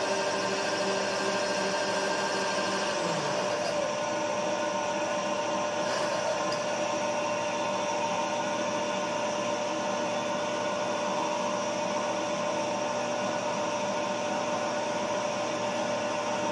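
Milling machine spindle running steadily while a 5/16-inch twist drill bores into a metal bar. About three seconds in, the machine's tone shifts and then holds steady.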